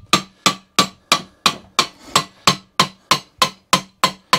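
Hammer blows in a fast, even rhythm, about three a second, on a bolt threaded onto the end of a mower roller's drive shaft, driving the shaft out through its bearing; each blow rings briefly.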